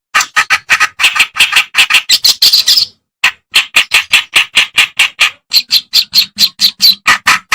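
Clamorous reed warbler (kerak basi) song: a fast, loud string of repeated notes, about six to seven a second, breaking off briefly about three seconds in and then going on.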